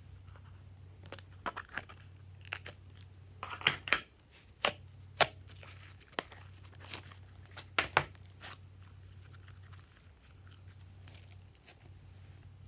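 Purple slime being peeled and squeezed out of a thin plastic container: the plastic crinkles and the sticky slime crackles and snaps, with a few sharp clicks loudest about four to five seconds in.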